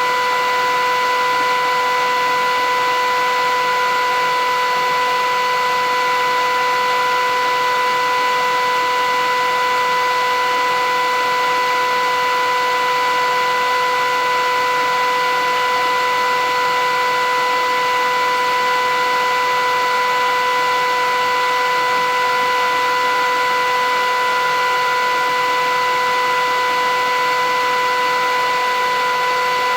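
Philips 8000 series vacuum cleaner running continuously: a steady rush of air with a high, even motor whine, unchanging in level or pitch.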